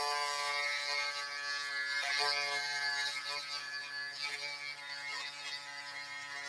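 Small handheld pen-style rotary grinder (Dremel-type) running with a steady whine, its bit grinding down the plastic of an action figure's joint; the tone wavers briefly about two and four seconds in as the bit presses on the plastic.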